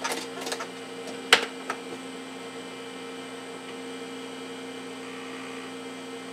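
Steady electrical hum from a running, opened-up Commodore Amiga 3000 tower computer. A few sharp clicks come in the first two seconds, the loudest about a second and a half in.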